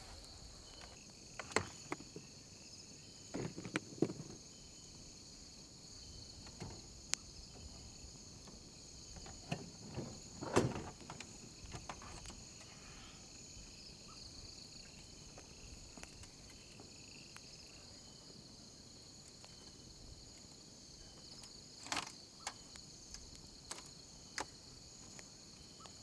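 Night-time cricket chorus, a steady high chirring, with scattered knocks and rustles from someone handling gear nearby; the loudest clatter comes about ten seconds in.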